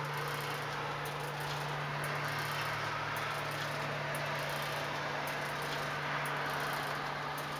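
Church bells dying away at the end of a full peal: the large bronze bell hangs almost still with no clear clapper strikes, leaving a steady low hum and an even wash of ringing and mechanical noise in the bell chamber, with faint regular clicks.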